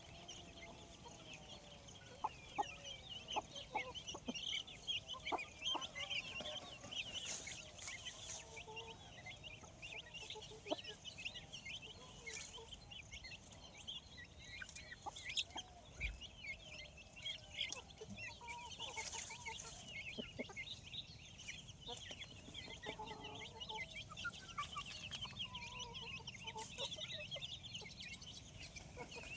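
Chickens clucking, with a constant chatter of short high chirps and scattered lower clucks.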